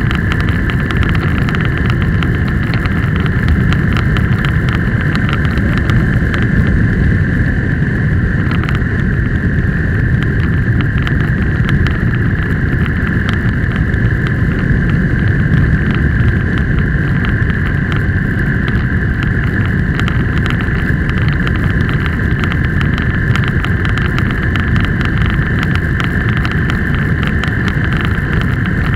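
A road vehicle driving at a steady speed: a constant low engine and road rumble with a steady high-pitched whine over it.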